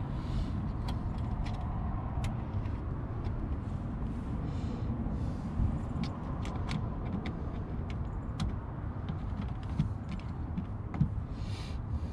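A steady low rumble with many small, sharp clicks and a few brief rustles as hands work nylon lock nuts onto the studs of a mud flap in a car's wheel well.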